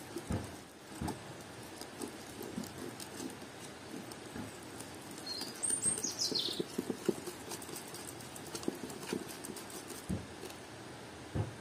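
Wire whisk beating cake batter in a ceramic bowl: quick, uneven tapping and scraping of the wires against the bowl. A short, high bird chirp falling in pitch is heard about six seconds in.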